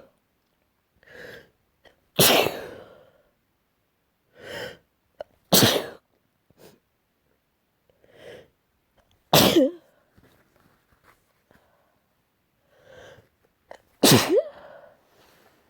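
A person sneezing repeatedly: four loud sneezes roughly four seconds apart, each preceded by a quieter intake of breath.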